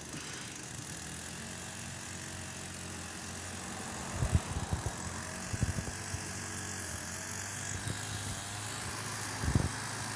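Steady low mechanical hum over background noise, broken by a few dull thumps about four, five and a half, and nine and a half seconds in.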